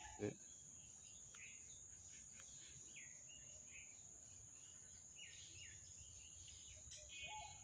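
Quiet outdoor ambience: a faint steady high insect buzz, with a few faint scattered bird chirps.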